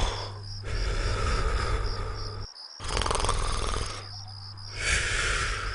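Cartoon snoring of the Gulli 'G' character: long, drawn-out snores repeating roughly every two seconds over a steady low hum. A rapid, regular high-pitched chirping runs throughout.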